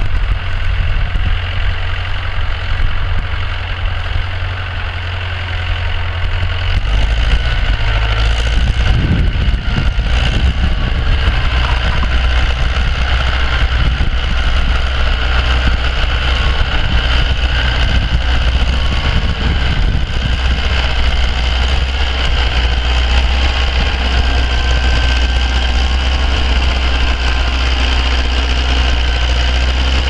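1956 International B-250 tractor's four-cylinder diesel engine running steadily under load while pulling a two-furrow reversible plough through the ground. Its note deepens about seven seconds in.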